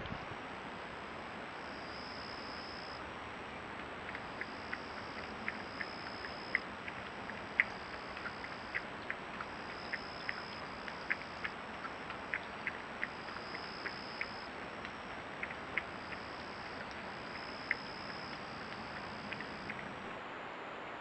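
Insects calling in short high trills that repeat over a steady hiss. A series of sharp ticks, a couple a second, starts about four seconds in and runs until near the end.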